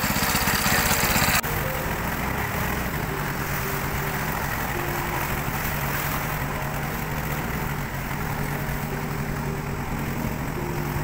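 A small boat engine running. About a second and a half in, the sound cuts abruptly from a louder, more rapidly pulsing run to a steadier drone, with the rush of a fast river underneath.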